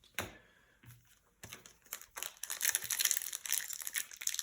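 Plastic foil booster-pack wrapper being handled and crinkled, a dense crackling that starts about a second and a half in, after a single sharp click near the start.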